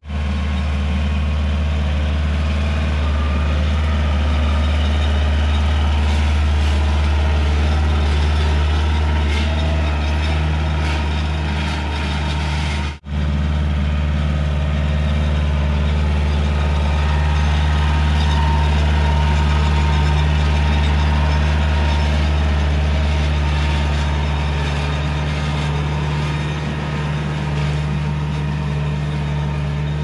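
A large engine running steadily at low, even speed, with a deep hum. It cuts out for a split second about thirteen seconds in, then carries on unchanged.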